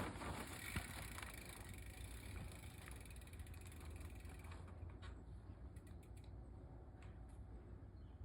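Faint mountain bike riding sound: rolling noise with the rear hub's ratchet ticking, fading away after the first few seconds and leaving only a few light clicks.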